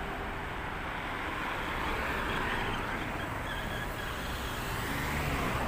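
Steady road traffic noise, an even wash of passing cars.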